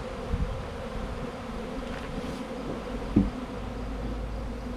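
A honey bee swarm buzzing as a steady, many-winged hum, the bees freshly shaken into a new hive box. A single low thump sounds about three seconds in.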